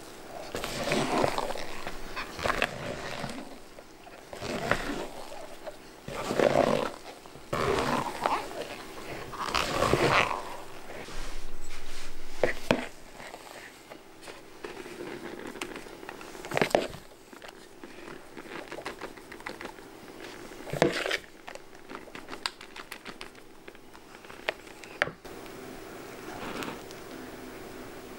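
Silicone spatula stirring and scraping through whipped cream and vanilla pudding in a plastic bowl, with wet squelching of the cream, in irregular strokes over the first half. After that come scattered light clicks and taps of a spoon and piping bag being handled, over a faint steady hum.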